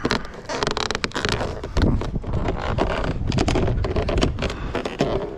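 A vinyl siding panel being worked into its corner channel, rattling and scraping with many irregular clicks and knocks.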